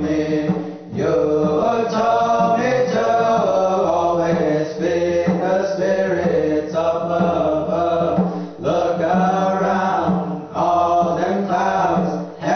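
Pueblo hand drum song: several men singing a chant-like melody together to a hand drum, with brief breaths between phrases.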